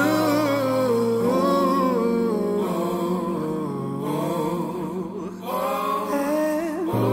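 Chilled soul/R&B song: a sung vocal line gliding over sustained bass notes, with the bass shifting about a second in and again near the end.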